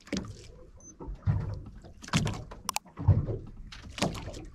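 A series of dull thumps and knocks, about five of them roughly a second apart.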